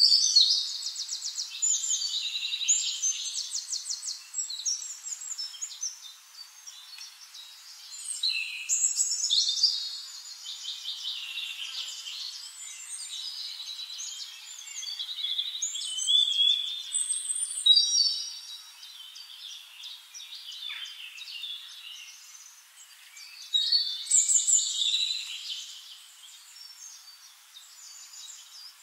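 Wild birds singing and calling in several bouts of fast, high trills and chirps, with quieter calling between the bouts.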